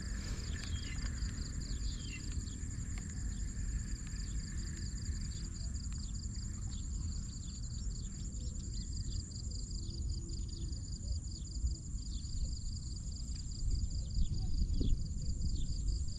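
Outdoor insect chorus: a steady, high-pitched pulsing trill from several insects, over a constant low rumble.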